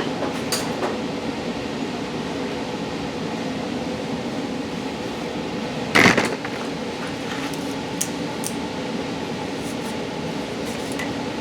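Steady mechanical hum, with a few light metallic clicks and one louder clank about six seconds in, as tools work at a stuck oil filter.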